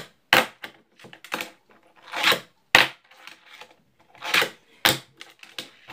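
Plastic fingerboard on a wooden desk: short rolling scrapes of the wheels, each ending in a sharp clack as the tail pops and the board lands, three times about two seconds apart.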